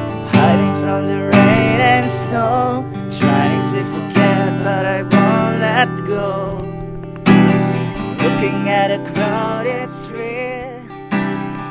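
Acoustic guitar strummed in a steady rhythm, about one strum a second, with a voice singing along.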